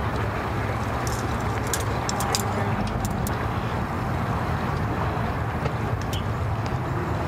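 An engine idling steadily with a low, even hum, with a few faint high ticks over it.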